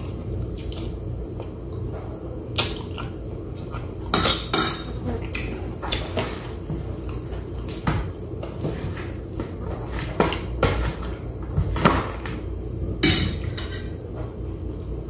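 Plate and dishes clinking and tapping now and then as food is picked from them by hand, a dozen or so short irregular knocks, over a steady low hum.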